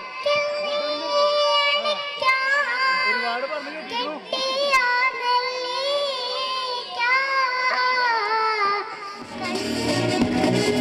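A young girl singing unaccompanied into a microphone, holding long notes. About nine seconds in, loud music with deep bass and a beat starts.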